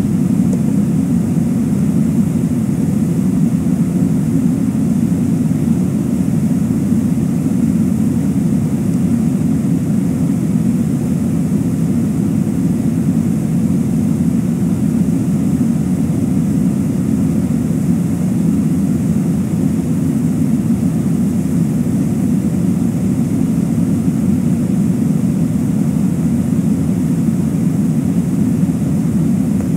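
Steady rush of a flowing river, an even low noise that does not change.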